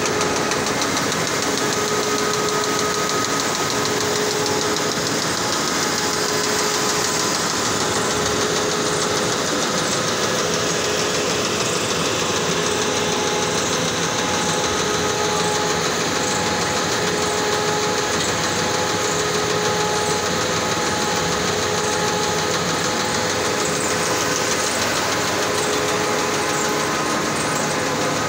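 Hunkeler paper-finishing line running slowly at about 70 metres per minute, its rollers, cutters and stackers making a steady, dense mechanical clatter with faint tones that come and go.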